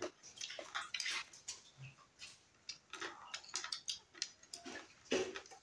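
Forks and spoons clicking and scraping on china plates during eating, in an irregular run of small taps.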